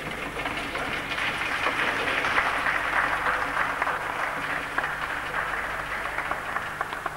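Applause: many hands clapping, swelling over the first couple of seconds and slowly dying away near the end.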